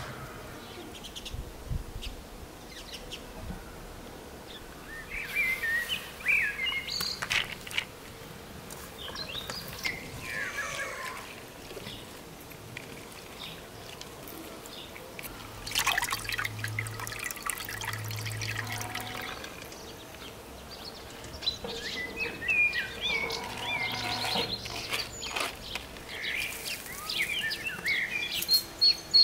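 Birds chirping on and off. Midway through, water is poured from a jug over chopped wild onion in a colander and splashes into the pan beneath.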